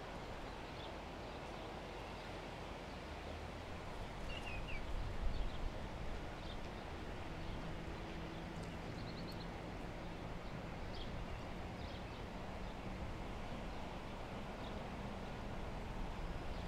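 Steady rushing noise of fast-flowing floodwater, with a few scattered bird chirps over it.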